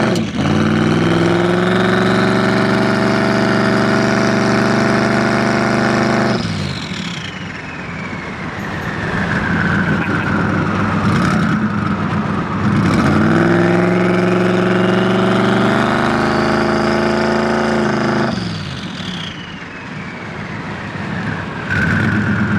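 Twin-turbo 2023 Ford F-150 engine accelerating hard twice, heard from inside the cab. The revs climb, then drop off about six seconds in and again about eighteen seconds in. A high whistle rises with each pull and falls away after it.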